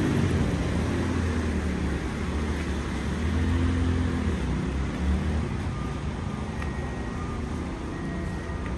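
City traffic on wet streets: a low engine rumble from passing vehicles, louder in the first half, over a steady hiss of rain and wet tyres. A few faint short high tones come in the second half.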